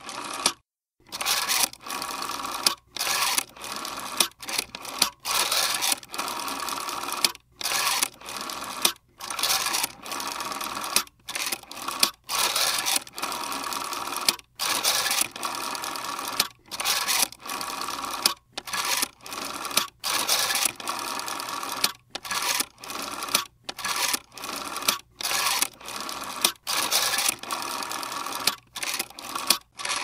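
Rotary telephone dial being wound round and let spin back, digit after digit, as a long number is dialed. Each return of the dial is a run of mechanical whirring lasting under a second to about a second and a half, with brief silent gaps between digits.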